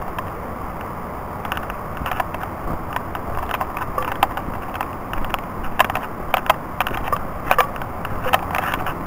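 Footsteps crunching and crackling on dry leaf litter and twigs, starting about a second and a half in, over a steady rush of running water from the nearby brook.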